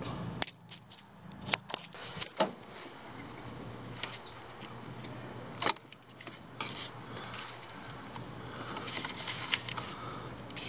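Hands and a thin hand tool working among the wiring and plastic parts of an engine bay, unplugging the coolant temperature sensor's electrical connector: scattered light clicks and scraping. There are several sharp clicks in the first couple of seconds, the loudest one a little before six seconds in, and soft rustling near the end.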